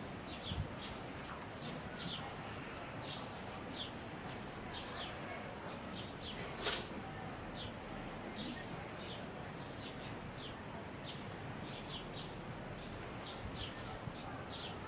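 A single short, sharp sneeze from a Pallas's cat a little under seven seconds in, the loudest sound, over small birds chirping with short repeated calls.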